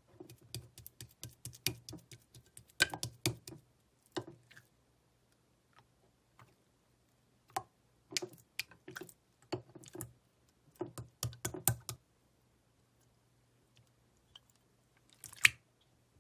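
White slime being pressed and squished by hand, making clusters of sticky clicks and small pops. The clicking comes in several bursts with short pauses between, and there is one loud pop near the end.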